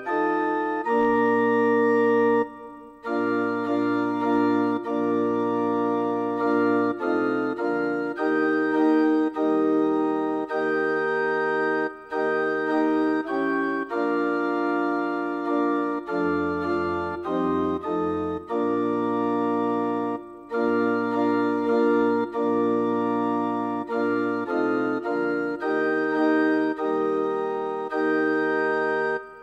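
Church organ playing slow, sustained chords over a low bass line, with short breaks between phrases about three seconds in, near twenty seconds and at the end.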